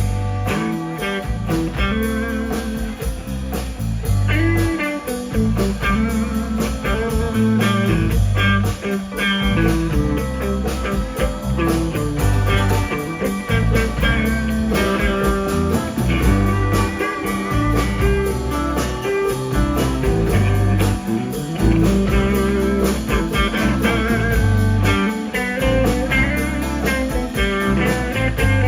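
Live blues-rock band playing an instrumental break: a lead guitar solo over bass and drums.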